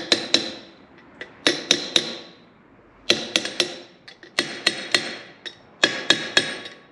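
Steel hammer striking an old bearing race used as a driver, pressing a new bearing race into a wheel hub. The blows are sharp and metallic with a ringing tone, and come in quick groups of two to four.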